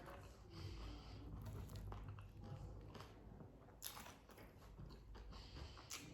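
Faint close-up mouth sounds of a person biting and chewing a crunchy bacon burger, with irregular wet crackles and two sharper crunches, one about four seconds in and one near the end.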